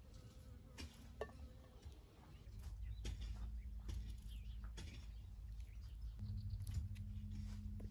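A kitchen knife cutting potatoes into cubes by hand over a metal bowl: scattered soft clicks and taps. Under them runs a low steady hum that gets louder about six seconds in.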